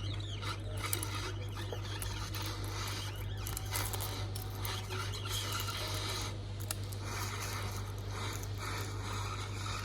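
Pen-style tool chipping and scraping cracked back glass off an iPhone X: irregular small scratches and ticks over a steady low hum.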